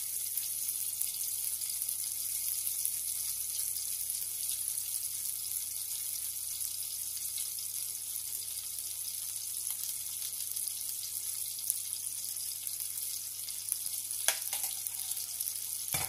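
Steady sizzling of cherry tomatoes frying in a pan. A couple of light knocks near the end.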